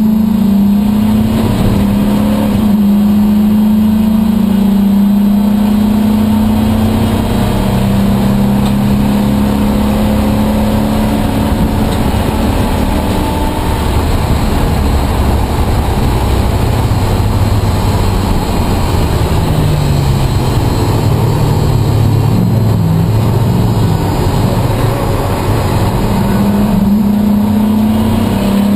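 Race car engine heard from inside the caged cockpit, running at high revs under load. Partway through it drops to lower, uneven revs for a long stretch, then climbs back to high revs near the end as the car accelerates again.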